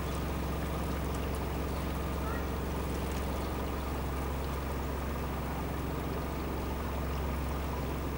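Narrowboat engine running steadily while the boat is under way: a constant low hum with an even hiss of water over it.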